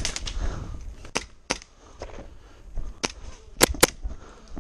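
Gas blowback airsoft pistol (WE Glock 17) fired in single sharp shots, about seven in all: a quick pair at the start, two more just after a second in, then three from about three seconds in, the last two in quick succession.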